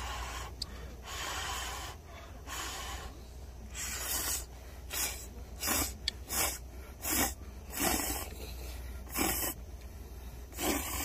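A person slurping instant ramen noodles: a string of about ten short slurps, coming faster from about halfway through.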